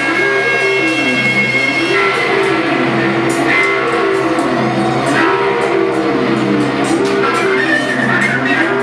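Loud live noise music: a dense, unbroken drone with a steady low hum and high ringing tones, and a pitched tone that glides down and back up again and again.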